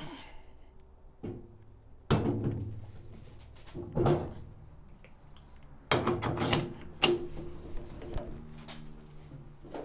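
A wheel and tyre being fitted onto a wheel balancer's shaft and collet: several loud clunks and knocks of metal, each followed by a short ring, with quieter handling noise between them.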